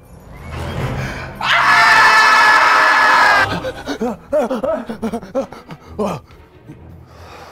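Two men screaming in fright: one loud held scream from about a second and a half in, lasting about two seconds, then short breathless cries and yelps with scattered footfalls as they run.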